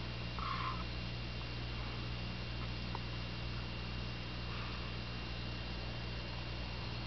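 Steady electrical hum from running aquarium equipment, with a faint high whine and hiss over it. A brief squeak comes about half a second in.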